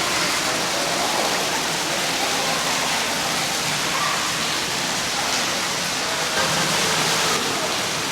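Steady rush of falling water, with faint voices in the background.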